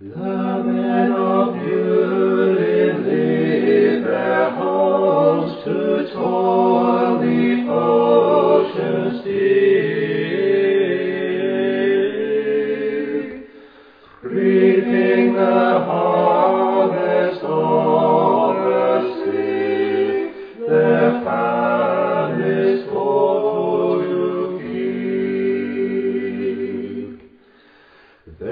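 Vocal music: singing voices in held chords, dropping away briefly about halfway through and again near the end.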